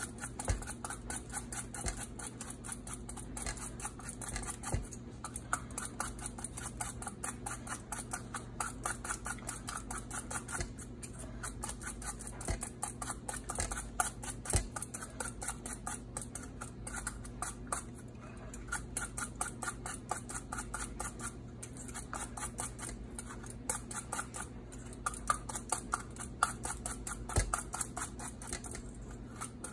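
A blade peeling the skin off a Granny Smith apple, in quick short scraping strokes in bunches, over a faint steady low hum.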